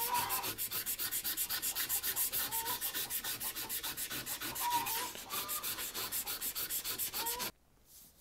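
Sandpaper rubbed by hand over the steel head of a hewing axe in fast back-and-forth strokes, about five or six a second, scratchy with faint squeaks; it stops suddenly near the end.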